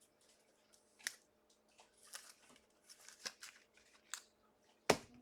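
Trading cards being handled and flipped through: a handful of short swishes and clicks, the sharpest near the end.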